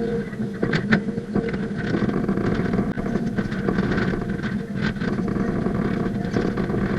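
Hydraulic excavator working under load: a steady engine and hydraulic drone, with a few sharp metallic clanks from the bucket and linkage, about a second in and again near five seconds.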